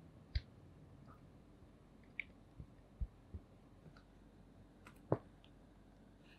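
About half a dozen light, scattered clicks and taps of utensils and dishes during kitchen work. The sharpest come near the start and about five seconds in.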